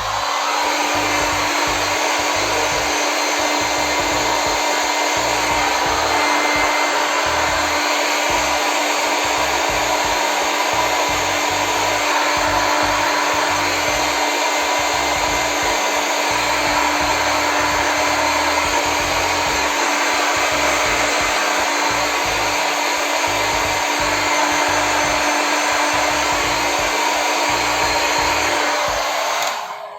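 Handheld hair dryer running steadily with a constant whir of blowing air, held on the laptop's plastic warranty sticker to heat it for peeling. It starts abruptly and shuts off near the end.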